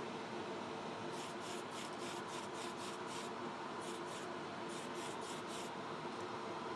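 Paint booth fan running with a steady hum, and over it a quick series of short, sharp scratchy hisses, about four or five a second, coming in three runs from about a second in to near the end.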